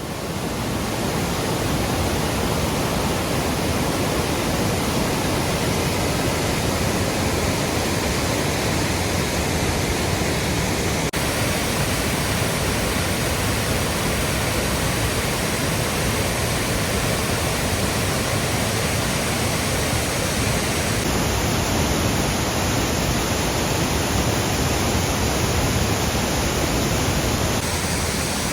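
Waterfall swollen with snowmelt, a loud steady rush of falling water.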